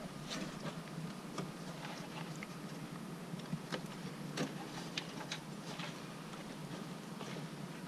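Small irregular clicks and scrapes of plastic as a hand pushes on the high-beam bulb's retaining clip and twists the stuck 9005 bulb in its headlight housing, over a steady low hum.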